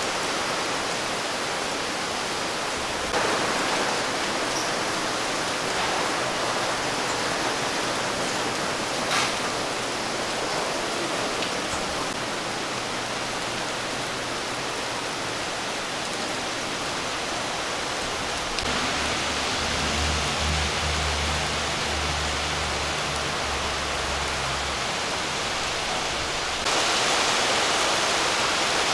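Torrential downpour: heavy rain falling in a steady, dense hiss. A low hum joins for several seconds past the middle.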